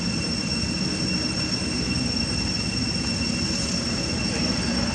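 Steady outdoor background noise: a low rumble with a thin, steady high whine running over it.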